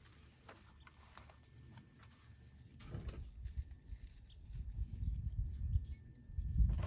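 Irregular low thumps and rustling of someone moving about on foot and handling things, busier in the second half.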